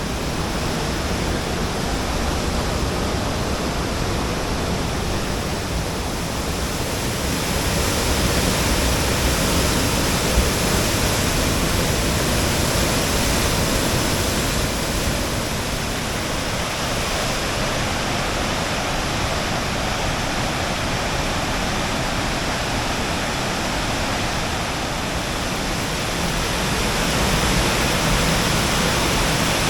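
A waterfall rushing steadily, growing a little louder about eight seconds in and again near the end.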